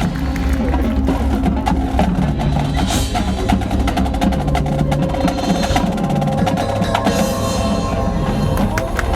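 Marching band playing, with the percussion section prominent: many quick drum and mallet strokes over sustained brass and bass tones.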